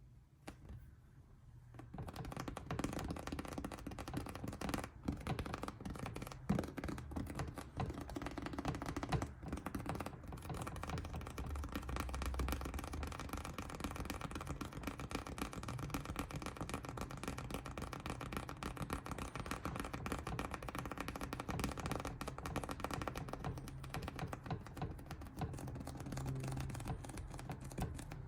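Dense, rapid scratching and tapping on a surface, starting about two seconds in, over a low steady hum.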